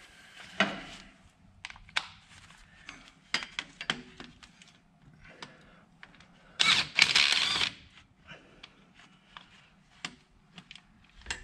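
Hand tools and metal engine parts clicking and knocking irregularly during hands-on work on a backhoe engine, with one louder, harsher noise lasting about a second near the middle.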